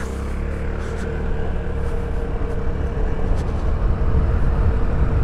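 Motor scooter's small engine running as it rides along, with a steady hum and road and wind noise that grow gradually louder as it gathers speed.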